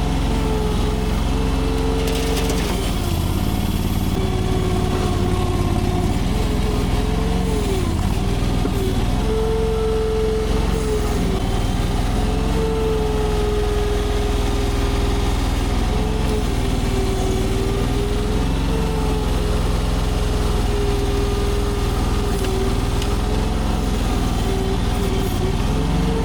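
AGT LRT23 mini compact track loader running while it works, its engine note steady but with a tone that dips and recovers every few seconds as the machine takes load.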